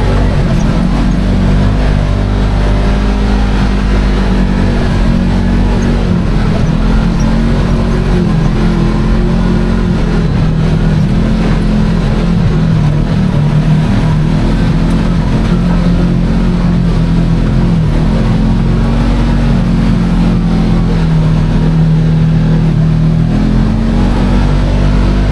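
Kawasaki KRX 1000 side-by-side's parallel-twin engine running under way, heard from the cab, its pitch rising and falling repeatedly with the throttle over uneven slickrock.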